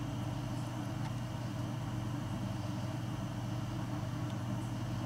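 A steady low hum that holds at one level without changing.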